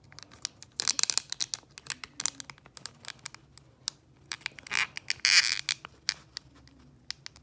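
Toy packaging being handled and pulled apart: scattered clicks and crinkles of plastic and cardboard, with a longer rustle about five seconds in.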